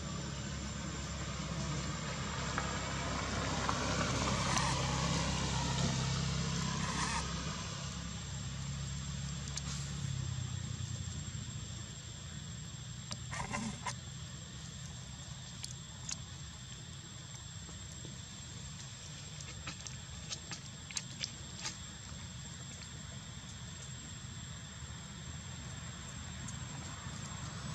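Steady low outdoor rumble that swells for a few seconds near the start and then settles, with a few faint clicks later on.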